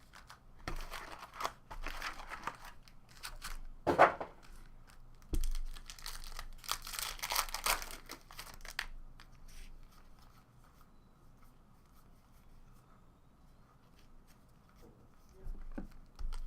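Plastic wrapping on a trading card box and its packs being torn open and crinkled by hand, in irregular bursts, with one sharp knock about four seconds in. The handling turns quiet from about nine seconds in, with a brief rustle near the end.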